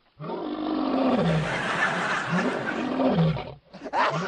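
Loud, rough growling roar whose pitch rises and falls, like a big cat, standing in for heavy snoring. It breaks off briefly near the end and starts again.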